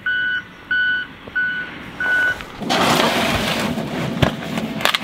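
Snowplow's reversing alarm beeping, about four beeps at an even pace that stop a little over two seconds in. A loud rush of noise from the plow at work follows and settles into a steady rumble.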